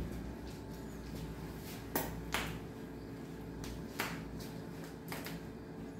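Requeijão being squeezed from a plastic bag onto a pizza: four sharp crackling clicks of the plastic, over a steady low hum.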